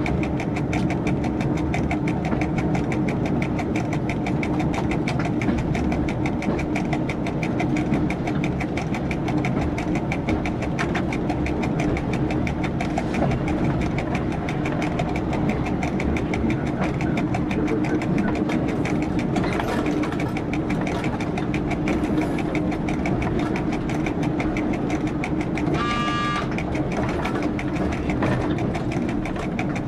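Diesel engine of a local train running steadily, heard from inside the driver's cab, with an even rattle of the train on the track. A short high tone sounds a few seconds before the end.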